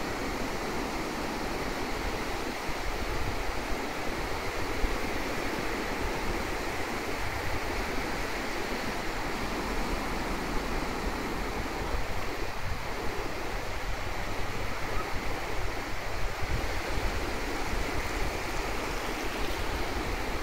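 Small waves washing in over a shallow, flat sandy beach: a steady wash of surf, with a flickering low rumble of wind on the microphone underneath.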